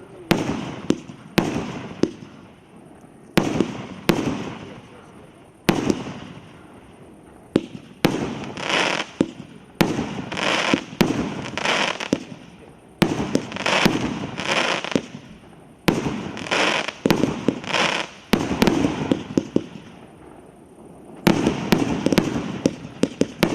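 Maxsem MC150 'Paradise Island' multi-shot fireworks cake firing shot after shot, roughly one to two a second. Each sharp launch is followed by a burst that fades away, and some stretches are thick with rapid crackling pops.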